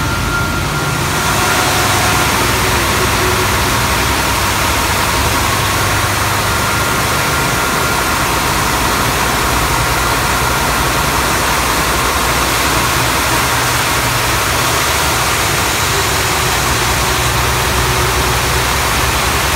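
Three-head wide belt sander running: a steady, loud low hum under a broad rushing hiss.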